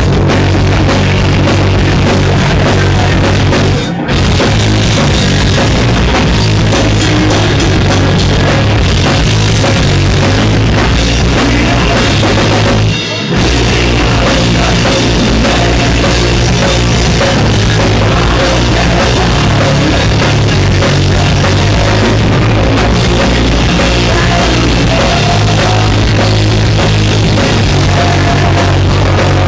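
Live punk rock band playing loud, with drum kit, bass guitar and electric guitar. The band cuts out for a split second twice, about four seconds in and again around thirteen seconds in.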